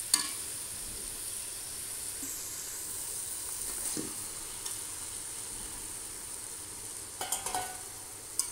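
Marinated mutton sizzling in hot oil and masala in a large karahi as the meat goes into the pan, with a few clinks and scrapes of a metal spatula against the pan near the end.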